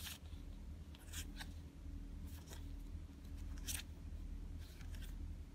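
Digimon trading cards being flipped through by hand, giving a few short, irregular soft swishes of card sliding against card, over a faint steady low hum.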